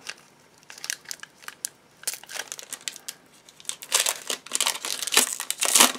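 Foil wrapper of a 2015 Donruss football card pack crinkling as fingers pull it open. Scattered light crackles at first, then a run of loud crinkling in the last two seconds.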